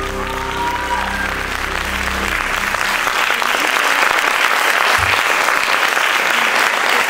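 The last notes of the music fade out over the first two or three seconds while audience applause swells and carries on.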